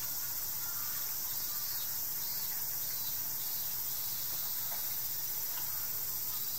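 Cicadas droning steadily in the summer trees, a continuous high-pitched hiss, with a faint low hum beneath.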